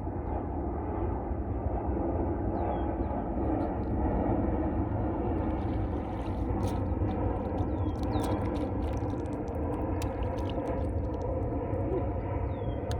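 Boat motor running steadily, a low even drone, with a few short high falling chirps and faint clicks over it.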